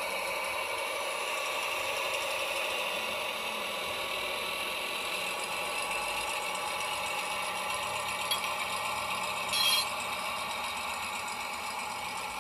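Sound-decoder diesel engine sound from an LGB G-scale model diesel shunting locomotive, running steadily through its onboard speaker with a light mechanical rattle. A click comes about eight seconds in, and a short hiss about a second and a half later.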